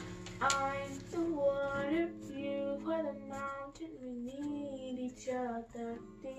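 A young girl singing a melody without clear words, the pitch gliding up and down from note to note, over acoustic guitar.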